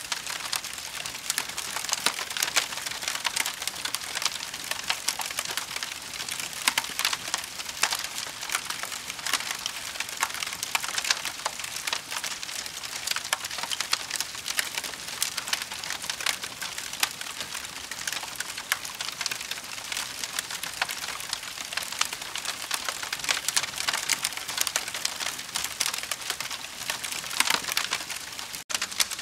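Campfire burning with a dense, steady crackle of small sharp pops and snaps from the wood, cutting out for an instant near the end.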